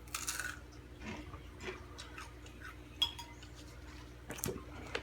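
A metal spoon clinking and scraping against a bowl, with one sharp ringing clink about three seconds in and a few short scuffs between.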